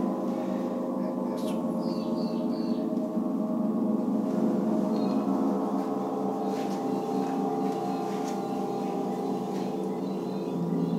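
Large sun gong kept vibrating with a soft mallet: a steady, sustained wash of many overlapping tones that pulse slightly. A deeper tone swells in near the end.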